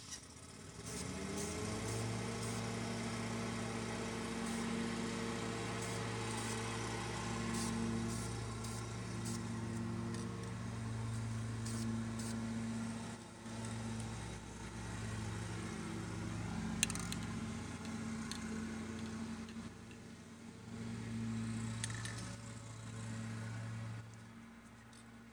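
A motor starts up, rising in pitch for about a second and a half, then runs with a steady low hum, dipping briefly a few times.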